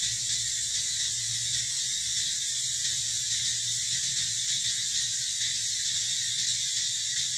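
Steady, unbroken high-pitched chorus of insects, over a weak low rumble.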